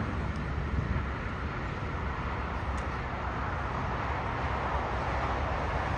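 Distant jet airliner engines on the landing roll: a steady, noisy rumble that grows slightly fuller in the second half.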